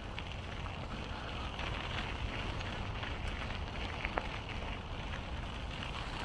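Wind noise on the microphone of a moving bicycle: a steady low rumbling rush, with a few light ticks.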